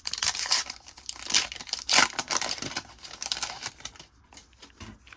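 A trading card pack wrapper being torn open and crinkled, a dense crackling rustle that dies down about four seconds in.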